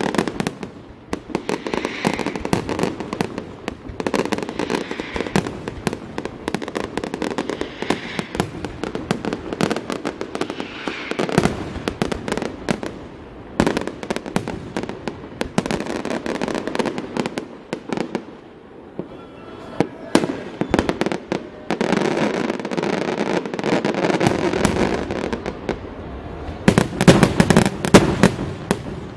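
Fireworks display: a dense run of bangs, pops and crackles from exploding shells. There is a brief lull about two-thirds through, then a loud cluster of bangs near the end.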